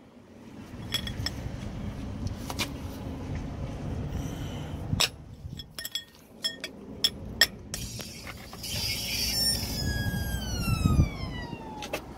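Truck front end being lowered off the jack onto a jack stand: scattered metal clinks and knocks over a steady low rumble. Near the end a whine falls steadily in pitch for a couple of seconds.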